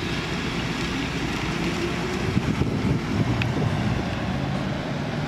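1985 Chrysler Fifth Avenue's 5.2-litre (318) V8 running at low speed as the car drives off, a steady low engine rumble.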